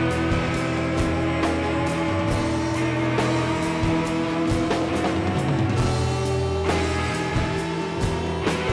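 Live band playing an instrumental passage: strummed acoustic guitars and electric guitar over a drum kit with cymbal hits, with long held notes throughout.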